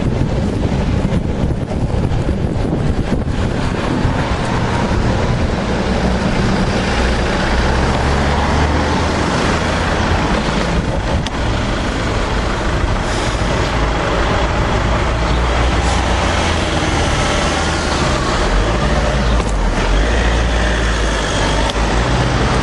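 Road traffic heard from a bicycle: steady tyre and engine noise of cars passing, with the low rumble of engines swelling twice, the second time as a car drives past close by near the end.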